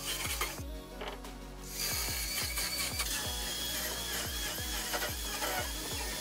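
Chainsaw cutting through the wooden boards of a shipping crate. It stops briefly about half a second in, then runs again with a wavering whine as it bites into the wood.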